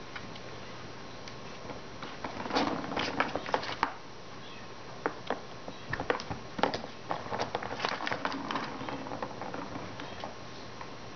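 Plastic ball rattling and knocking around a circular plastic cat track toy as a Persian kitten bats at it: a burst of clicks and knocks about two seconds in, then a longer run from about five to nine seconds.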